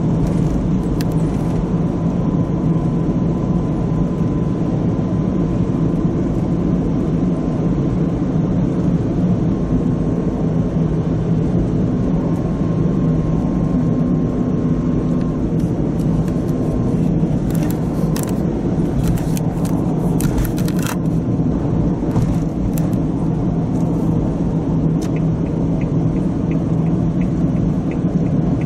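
Steady low rumble of a car at highway speed heard from inside the cabin: tyre and engine noise. A faint high whine runs through the first half, and a few brief clicks come about two-thirds of the way in.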